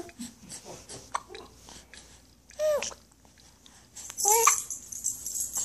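Baby with the hiccups babbling in short, high-pitched vocal sounds, the two loudest about two and a half and four seconds in.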